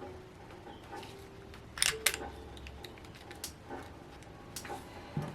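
Light clicks and taps of small hand tools on metal engine parts while a stuck cam follower is worked loose, with a sharper pair of clicks about two seconds in.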